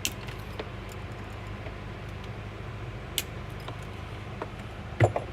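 Scattered sharp clicks and light knocks from handling parts during the install, the loudest a quick double knock near the end, over a steady low hum.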